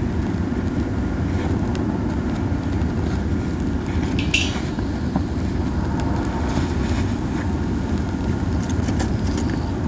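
Pine cones burning in a campfire: a low rushing rumble from the strong flames and wind, with soft scattered crackles and one sharper pop about four seconds in.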